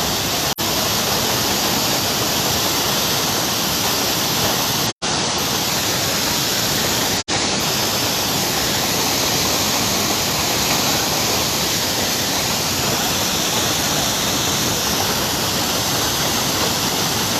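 Waterfall pouring, a loud, even rush of water. It cuts out for an instant three times: about half a second in, about five seconds in and about seven seconds in.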